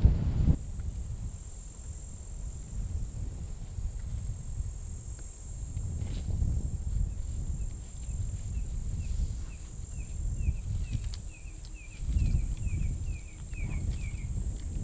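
Insects buzzing steadily at a high pitch, with a bird's short, slightly falling chirps starting about six seconds in and repeating faster and faster until near the end. A low rumble runs underneath.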